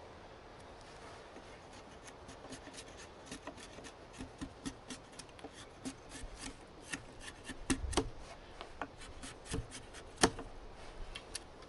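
Blade shaving a wooden throw stick in quick carving strokes, rounding off its hard edges: a run of short, sharp scrapes and ticks of wood being cut, starting about two seconds in, with a few strokes much louder than the rest.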